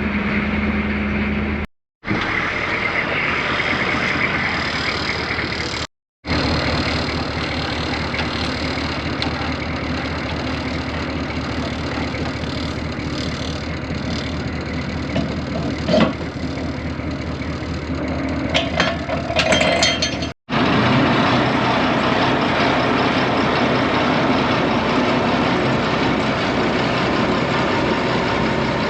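Tractor engine running steadily, in several stretches separated by sudden cuts about 2, 6 and 20 seconds in. A single sharp knock comes about 16 seconds in, and a few clicks follow around 19 to 20 seconds.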